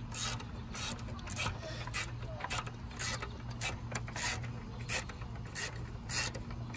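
Hand ratchet and socket clicking in short strokes, about two or three a second, as the battery hold-down bolt is tightened, over a steady low hum.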